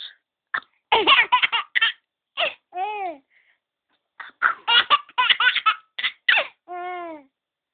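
A 7-month-old baby's belly laughs, coming in several bouts of quick high-pitched laugh pulses with short pauses between them, each bout ending on a drawn-out squeal.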